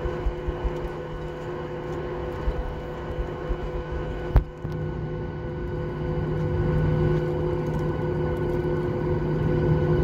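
Cabin noise of a taxiing Boeing 737-800, its CFM56 engines giving a steady hum with a thin whine over a low rumble. There is a single sharp knock a little over four seconds in, and the engine sound grows louder after about six seconds.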